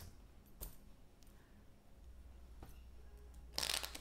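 Tarot cards handled in the hands: a couple of soft taps, then a short rustle of cards being shuffled near the end.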